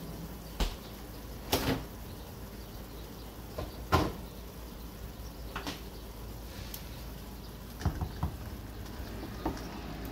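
Kitchen sounds: a low steady hiss with scattered sharp clicks and knocks at irregular intervals, the loudest about four seconds in.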